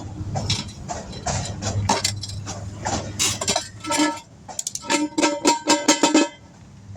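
Metal tools clinking and knocking irregularly while a tire is worked onto its wheel, followed about two-thirds of the way in by a fast run of short, pitched stuttering pulses that stop suddenly.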